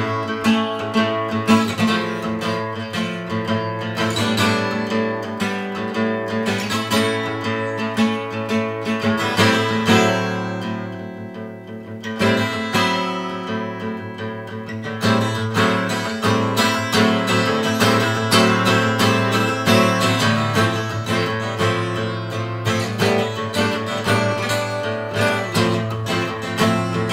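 Kramer dreadnought steel-string acoustic guitar played with picked notes and chords. It eases into a quieter passage about halfway through, then builds back up.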